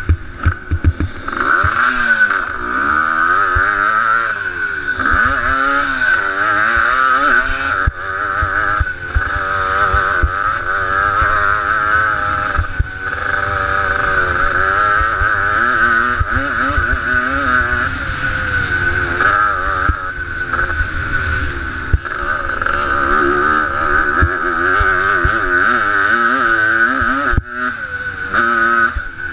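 Motocross dirt bike engine pulling hard round the track, its pitch repeatedly climbing and dropping as the rider rolls on the throttle and shifts, recorded from a camera on the rider's helmet.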